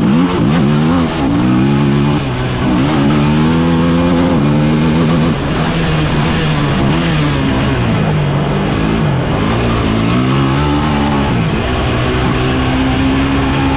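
Off-road vehicle engine running under way, its pitch rising and falling every second or two as the throttle is opened and eased.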